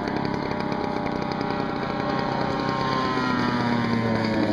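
Propeller engine of a radio-controlled scale Junkers Ju 87 Stuka model running, a steady buzz whose pitch slowly falls from about halfway in.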